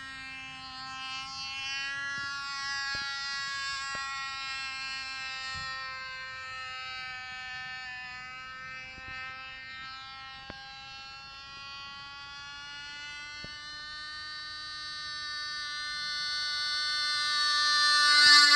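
Cox Baby Bee .049 two-stroke glow engine on a radio-controlled model plane, buzzing at a steady high pitch that wavers gently as the plane flies around. Near the end it grows loud as the plane passes low and close, and its pitch starts to fall as it goes by.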